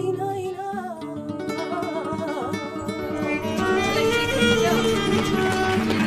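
Flamenco-style Christmas carol (villancico) music with Spanish guitar, a wavering lead melody in the first few seconds, growing a little louder after about three seconds.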